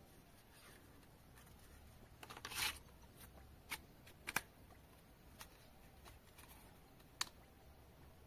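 Hands handling a folding plastic drone and fitting its battery: a brief scraping rustle about two and a half seconds in, then a few sharp plastic clicks spread through the rest.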